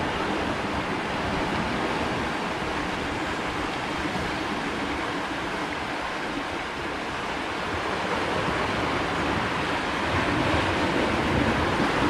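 Sea surf washing over the rocks below in a steady rush, swelling a little near the end.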